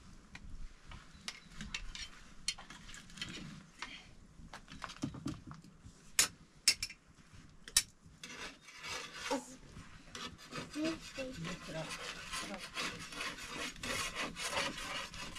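Scraping and rubbing at a wood-fired flatbread griddle, with scattered crackling clicks and three sharp snaps about six to eight seconds in. The scraping grows denser through the second half.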